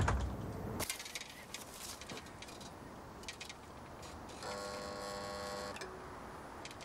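Gate intercom buzzer pressed once, a steady electric buzz lasting about a second and a half, a little after the middle. A louder sound fades out in the first second.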